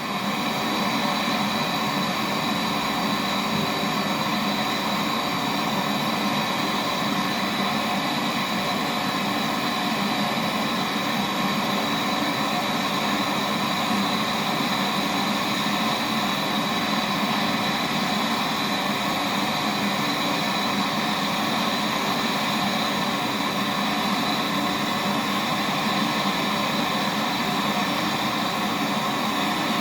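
Gas brazing torch burning steadily with an even hissing rush, used to braze the copper lines of a fridge's newly installed compressor.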